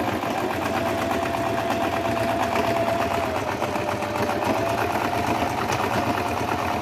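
Singer 1507 sewing machine sewing a straight stitch through eight layers of folded fabric: the motor whines steadily over a rapid needle clatter, and it sews without straining. The speed eases off slightly a little past halfway, then picks back up.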